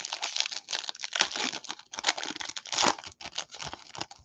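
A foil trading-card pack wrapper (2021 Bowman baseball hobby pack) being torn open and peeled off the cards: a continuous run of crinkling and tearing, with a few sharper crackles.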